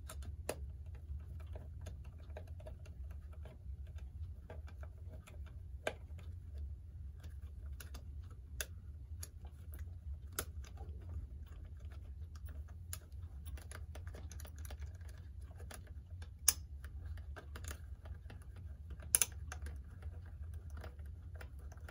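Irregular light clicks and taps of a screwdriver and small metal clock parts being worked at the bench, a couple of them sharper, over a low steady hum.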